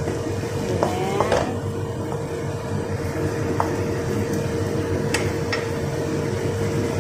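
Egg and tomato cooking in a nonstick wok: a steady hiss over a constant hum. A spatula stirs the food, with a couple of short squeaks about a second in and a few sharp clicks against the pan later on.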